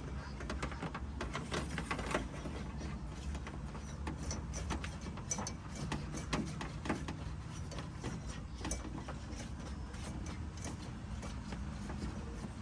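Irregular small clicks and rattles of a wire and its plug being fished through a hollow car trunk hinge, over a low steady hum.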